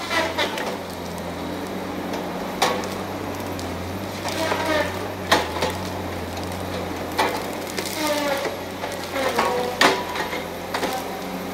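Tigercat 870C feller buncher running steadily in the distance while it works, with sharp cracks and short creaks that fall in pitch from pine trunks and branches snapping and giving way as trees are cut and bunched.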